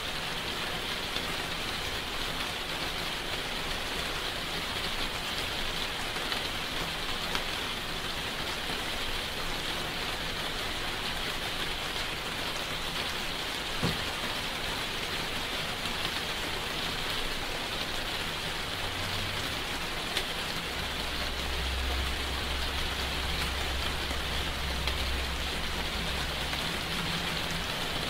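Steady rain falling, an even hiss of drops. A low rumble comes in about two-thirds of the way through.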